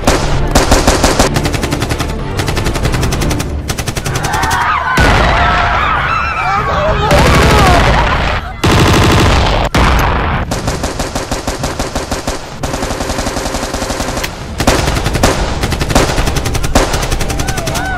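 Automatic rifle fire from Kalashnikov-type rifles: long strings of rapid shots, almost without a break. A wavering, wailing sound rises over the shots in the middle.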